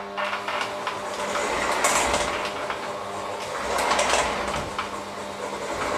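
Electric hand mixer running in a stainless steel bowl of bread dough, a steady motor whine with louder, noisier surges about every two seconds as the dough is worked.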